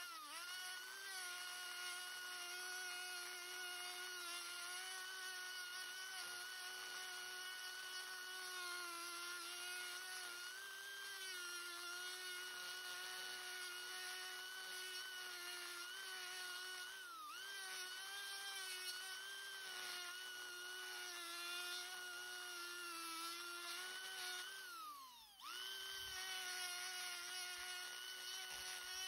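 Hand-held rotary tool grinding pine knot wood with a small ball burr: a steady high motor whine that sags briefly in pitch a couple of times. It winds down about 25 seconds in and starts up again about a second later.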